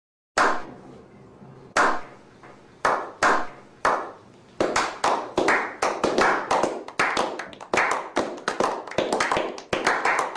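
A slow clap that builds: a man clapping his hands once about every second, then others joining in, the claps coming faster and faster until they run together into steady applause from a small group.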